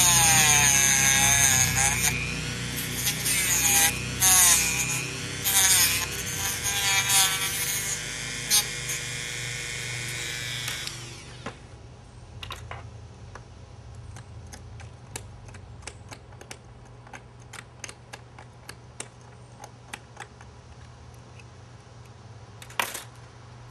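Dremel rotary tool cutting and grinding a red 3D-printed plastic part. Its high motor whine dips in pitch and recovers as it bites into the plastic. It stops about eleven seconds in, leaving a faint low hum and scattered light clicks.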